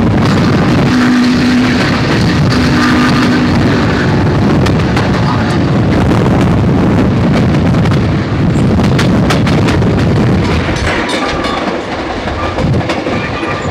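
Steam-hauled train running, heard from a car back in the consist behind Southern Pacific 4449, a GS-4 4-8-4 steam locomotive: a loud, steady rumble, with the engine's whistle sounding two long blasts in the first few seconds. Toward the end the rumble lightens and the rail clatter of the wheels comes through.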